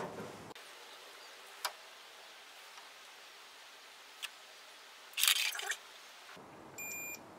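A digital multimeter on its continuity setting gives one steady high-pitched beep of under a second near the end, showing that the probed wire connects through to the wiper motor. Before it come a few light clicks from the probes and a louder brief rustling scrape from handling.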